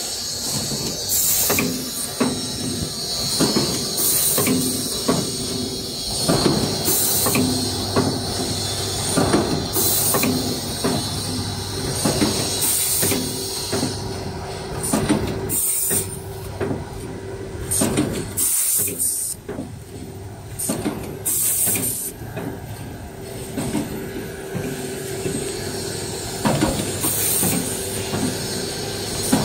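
Rotary packing machine running, with mechanical clacking and knocking over a steady hum. Short hisses of compressed air from its pneumatic cylinders come every few seconds.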